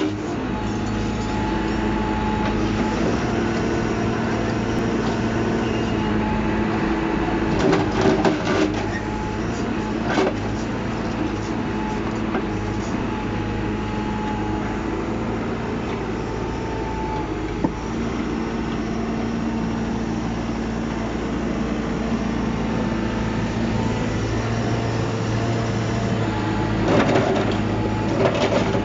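14-ton Hyundai excavator's diesel engine running steadily, with a few short bursts of sharp knocking about eight seconds in, once more soon after, and again near the end.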